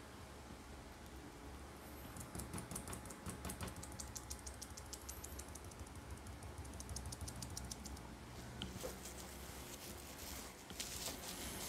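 Gloved fingertips dabbing into wet oil paint on a ceramic tile to press in fingerprint texture: a quick run of faint, light taps, several a second, thickest in the middle.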